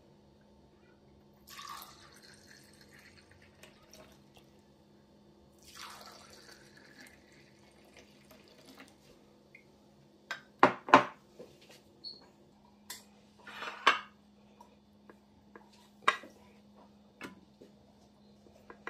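A drink poured from a glass carafe into two drinking glasses, one pour after the other, then sharp clinks and knocks of glassware and dishes being set down on the table. A faint steady hum runs underneath.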